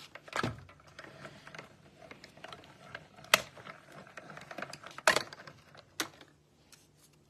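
Hand-cranked Stampin' Cut & Emboss die-cutting machine rolling a die and plate sandwich through, with a mechanical clatter. The plates give a few sharp clacks as they go in and are pulled out: the loudest is about three seconds in, with others near the start and about five and six seconds in.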